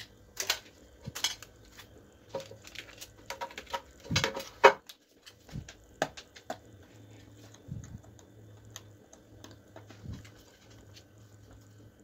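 Hands handling a plastic Bluetooth speaker's casing: irregular clicks, taps and knocks, with a louder cluster about four seconds in.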